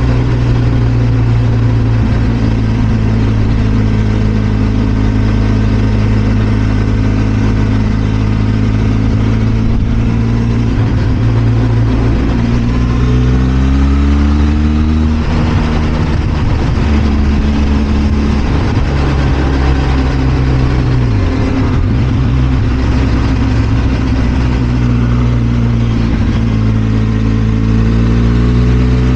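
Benelli TRK 502 X's parallel-twin engine running under way, its pitch climbing about halfway through as it accelerates, dropping about two-thirds through as it slows, and climbing again near the end.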